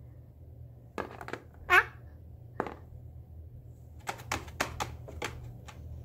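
Eclectus parrot's beak clicking and tapping: a few sharp clicks, one short squeak just under two seconds in, then a quick run of clicks near the end, over a steady low room hum.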